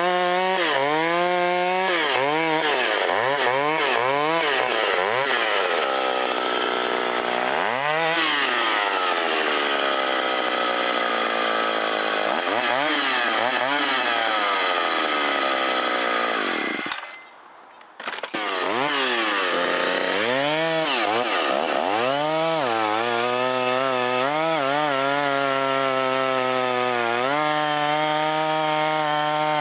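Vintage Stihl two-stroke chainsaw cutting through a large log. The engine note repeatedly drops as the chain bogs under load, then climbs back as the saw revs up again. The sound cuts out abruptly for about a second a little past halfway, then returns.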